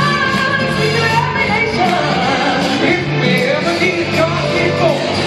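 Live gospel music in a large hall: a band with repeated low bass notes under sung lines that slide up and down.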